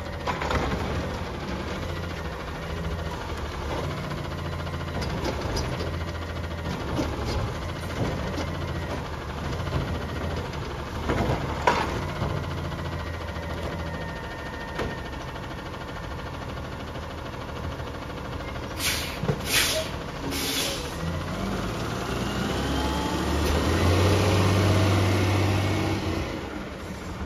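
Garbage truck's diesel engine running, with a sharp clank about twelve seconds in and three short hisses of air a little past the middle. Near the end the engine revs up and grows louder as the truck pulls away, then fades.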